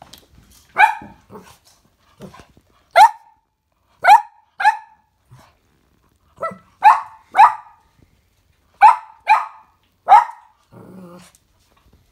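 Cavalier King Charles spaniel puppy barking: about a dozen short, sharp barks, most of them in quick pairs, with pauses between.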